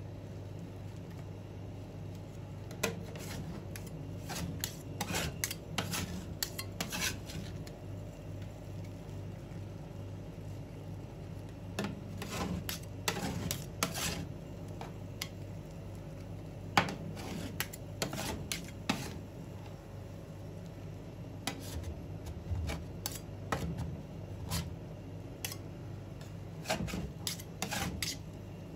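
Metal spatulas chopping and scraping rolled-ice-cream mixture on a stainless-steel cold plate. They go in clusters of sharp taps and scrapes with short pauses between, over a steady low hum.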